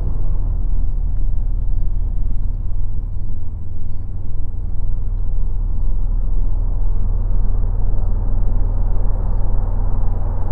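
A steady low rumble of a vehicle running, unchanging throughout.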